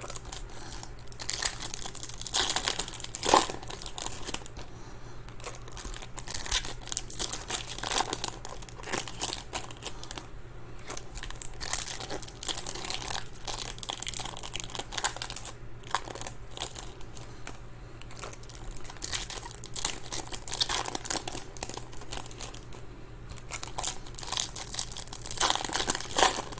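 Trading-card pack wrappers being torn open and crinkled by hand: irregular crackling and crumpling with a few sharper tears.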